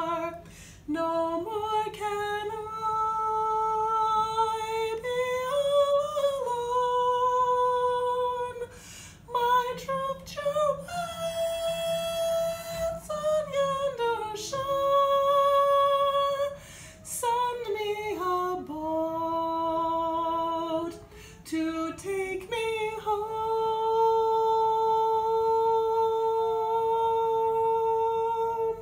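A single woman's voice singing a slow vocal line with no accompaniment, in long held notes separated by short breaths; the last note is held for about six seconds and stops near the end.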